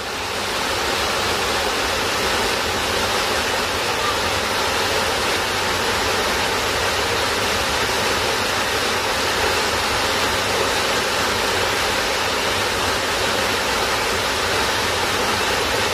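Waterfall: a steady, even rush of falling water that swells in over the first moment.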